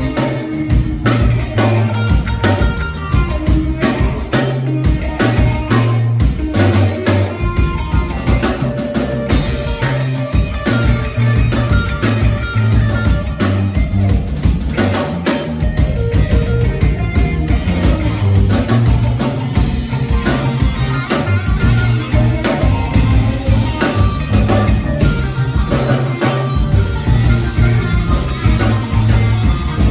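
Live band playing rock music with a drum kit keeping a steady beat under strong bass.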